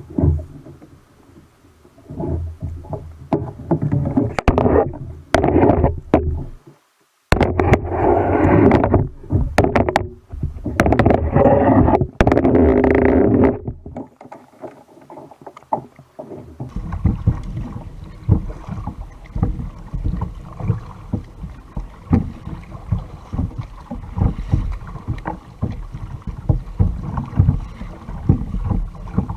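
Water noise around a kayak at sea, with wind on the microphone: loud, uneven rushes in the first half, then a steady rumbling wash with small knocks and splashes. The sound drops out for a moment twice, about a third of the way in and again about halfway.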